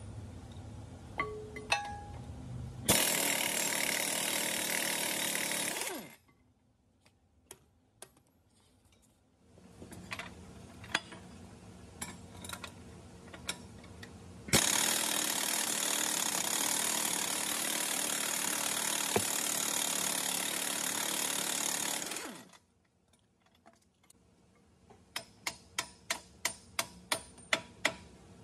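Air impact wrench running in two long bursts on the walking beam's bolts, a shorter one and then a long one of several seconds, each starting and stopping abruptly. Near the end comes a run of quick, even clicks, about four a second.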